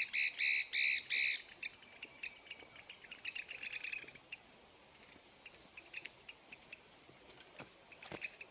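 Chinese hwamei (bạch mi) singing: four loud, clear whistled notes in the first second and a half, then a run of quick chips and clicks, thinning out, with a couple of short falling notes near the end. A steady high whine runs underneath.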